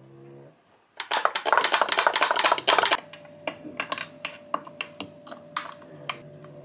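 Ice cubes clattering into a glass jar of chocolate milk in a quick dense run of clicks, followed by a metal spoon clinking now and then against the ice and glass as the drink is stirred.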